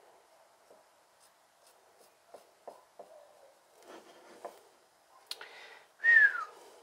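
Faint scratchy strokes and light ticks of a drawing tool sketching on a flat stone. Near the end comes a short, loud, high squeak that falls in pitch.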